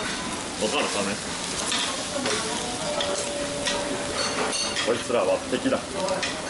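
Shredded cabbage and corn sizzling on a hot iron griddle while metal spatulas chop and scrape through the pile, with quick clacks of steel on the plate.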